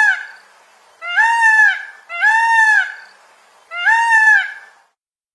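Peacock calling: the end of one loud call, then three more, each just under a second long and arching up then down in pitch, with short pauses between them. The calls stop about five seconds in.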